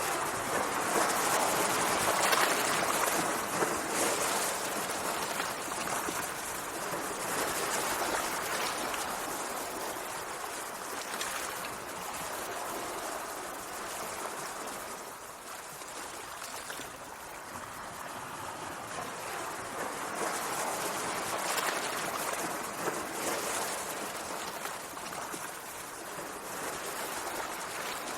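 Sea water washing and rushing, swelling and easing every few seconds, loudest near the start.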